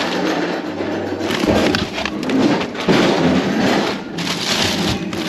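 Plastic food packaging crinkling and rustling as gloved hands rummage through packs inside a plastic waste bin, with irregular knocks and crackles.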